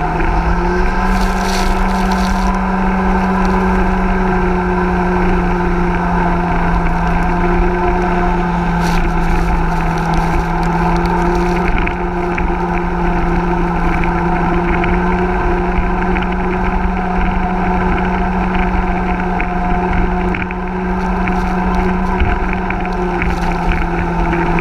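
Hison 1400 cc mini jet boat's engine running under way at a steady pitch, with a constant rush of water and wind. Short bursts of hiss come about a second in and again around nine to twelve seconds in.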